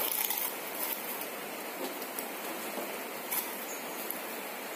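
Steady sizzling crackle of flattened rice (chire) frying on a low flame in a pan, with a couple of light clicks as a steel mixer-grinder jar is filled by hand.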